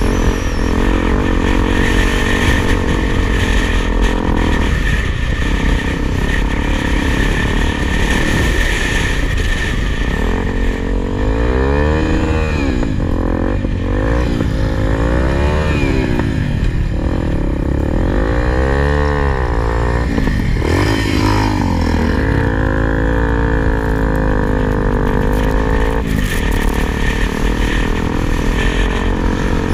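Single-cylinder four-stroke dual-sport motorcycle engine running as the bike rides through sand, its pitch rising and falling several times in the middle as the throttle is opened and closed.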